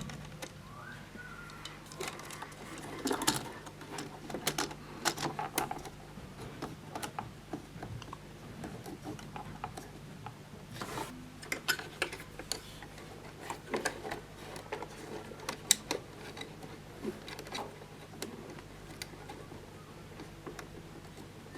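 Irregular light clicks, taps and knocks of plastic and metal parts of a Jura Z5 coffee machine being handled and worked with hand tools during disassembly, over a faint steady hum.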